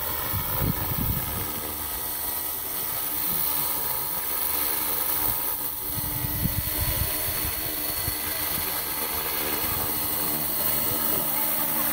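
Radio-controlled scale Alouette helicopter in flight: its motor and rotor keep up a steady whine with a high hiss. Irregular low rumbles of wind on the microphone come and go.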